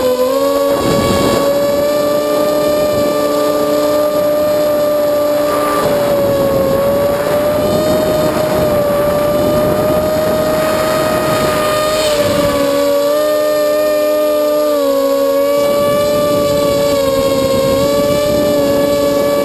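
Eachine Racer 250 quadcopter's four 2204 2300KV brushless motors and propellers whining in flight. Several pitches drift up and down together as the motor speeds change.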